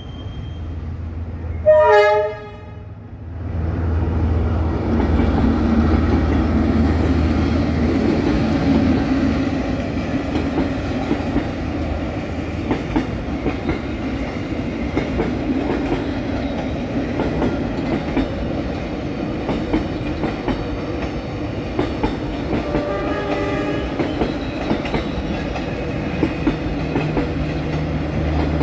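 A diesel locomotive sounds its horn in one short, loud blast about two seconds in, then the train rumbles past with its engine running and the wheels clicking over rail joints. A second, fainter horn blast comes near the end.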